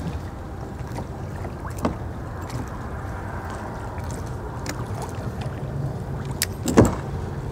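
Steady wind rumble on the microphone and water around a kayak drifting beside a bridge piling, with a few light knocks, the loudest shortly before the end.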